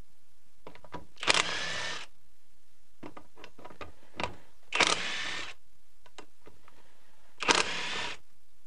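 Cordless impact driver hammering in three short bursts of under a second each, cracking loose the 10mm bolts of a cylinder head's cam holder plates. Faint clicks between the bursts as the socket is set on each bolt.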